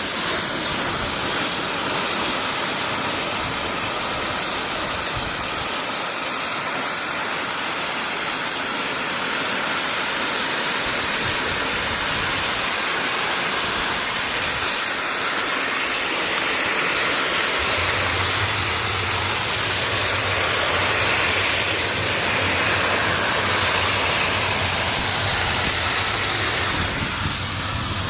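Pressure washer spraying water in a steady, loud hiss. About two-thirds of the way in, a steady low hum joins it.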